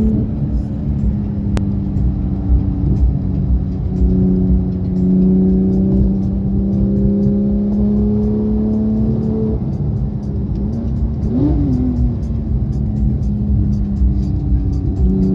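Porsche 911 GT3's flat-six engine heard from inside the cabin, droning steadily under way. Its pitch creeps slowly upward, drops about ten seconds in, then rises and falls quickly once shortly after before settling back to a steady drone.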